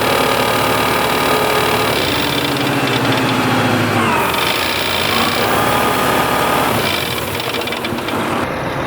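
Small engine of a Berardinucci Tornado running in a field, its pitch dipping and recovering about four seconds in and changing again near seven seconds as the load on it varies.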